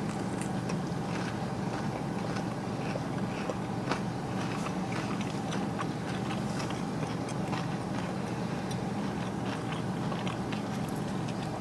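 Quiet eating: chewing with faint small crunches and clicks, over a steady low hum.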